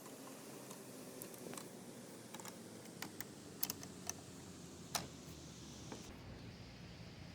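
Faint irregular clicks and taps, about eight of them at uneven spacing, over a steady low hum.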